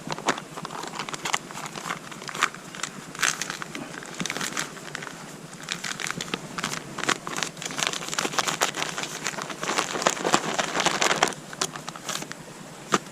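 Crinkly camping gear being handled and packed, making irregular rustling and crackling that grows busier in the second half.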